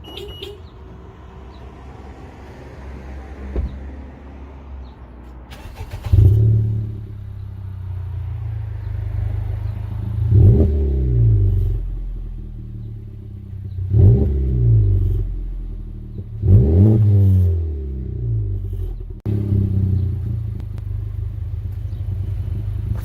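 2018 Honda Civic Type R's turbocharged 2.0-litre four-cylinder through a muffler-delete exhaust: it comes on loudly about six seconds in, settles to idle, and is revved three times, each rev rising and falling in pitch.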